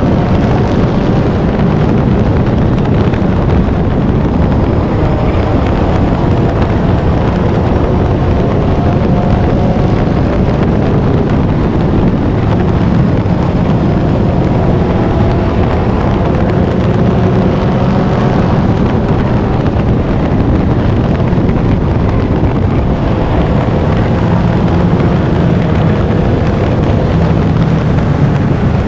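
Four-cylinder stock car engine running hard at racing speed, heard from inside the car: a loud, steady drone whose pitch rises and falls a little, over heavy low rumble and wind noise.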